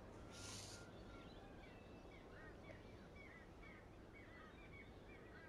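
Faint background chirping of small birds, short repeated chirps a few times a second, over near-silent room tone. About half a second in, a brief soft hiss.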